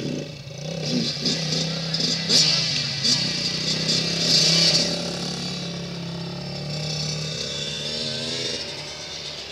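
Suzuki 400cc ATV's single-cylinder engine running steadily, with a louder, hissier stretch between about two and five seconds in.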